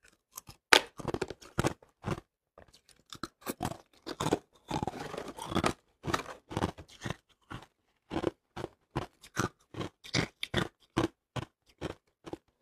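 Hard ice being bitten and chewed: a rapid series of crisp crunches, about two or three a second, with a longer, denser stretch of crackling and scraping about five seconds in.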